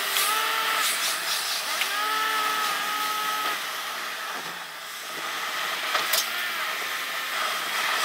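Car interior road noise, sped up, with the engine's pitch rising and falling in short sweeps and a sharp click about six seconds in.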